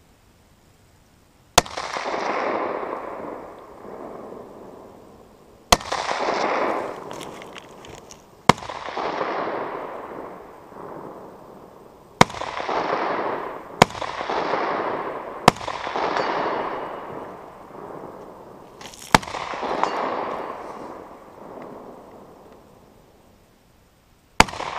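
SIG 556R rifle in 7.62x39mm fired in deliberate single shots, eight in all, spaced one to four seconds apart. Each sharp crack is followed by a long echo that rolls away over two to three seconds.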